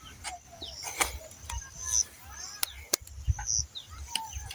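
Birds and chickens calling in short chirps, with several sharp knocks or cracks scattered through.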